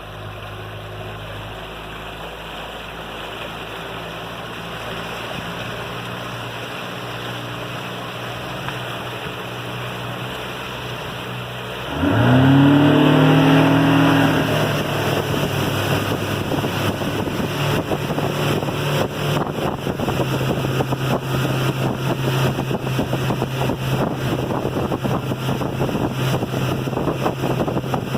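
Boat's outboard engine running at low speed, then throttled up sharply about twelve seconds in: the pitch climbs quickly and settles into a steady higher-speed run, with wind and water rushing over it.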